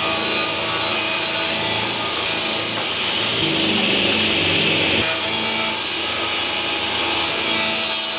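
Table saw running at speed and ripping thin strips of ash lengthwise, a steady whine of the motor and blade under the noise of the cut.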